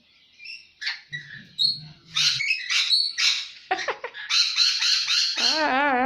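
Cockatoos and a smaller bird squawking and calling over and over in a squabble over food: a string of harsh squawks, with a wavering, warbled call near the end.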